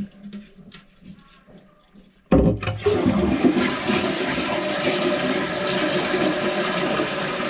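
Toilet flushing: the water rushes out suddenly about two seconds in and keeps running steadily. It is a test flush of a newly fitted fill valve, flapper and supply line, checking for leaks.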